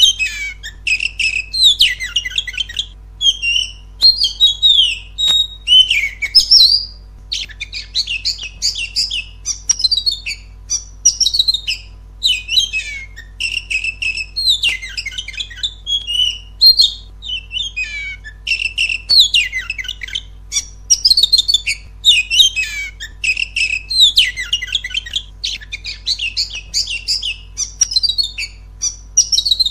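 Oriental magpie-robin (kacer) singing a loud, rapid, varied song of whistled and scratchy phrases with only brief pauses: the agitated territorial song used as a trigger recording to provoke caged kacer into singing.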